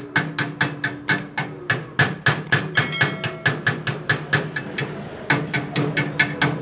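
A chipping hammer rapidly knocks slag off a fresh stick weld on a steel square bar, about four or five sharp metallic strikes a second. Each strike leaves the bar ringing briefly.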